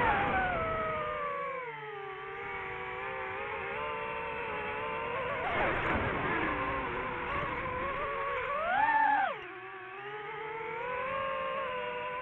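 DJI FPV drone's motors and propellers whining, the pitch sliding up and down with the throttle. About nine seconds in the whine climbs steeply and loud, then drops away abruptly.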